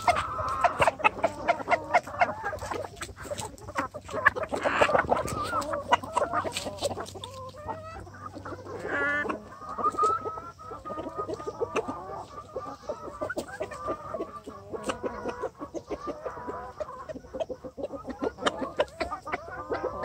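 A flock of free-range chickens, hens and roosters, clucking and calling over one another, with a longer drawn-out call about halfway through.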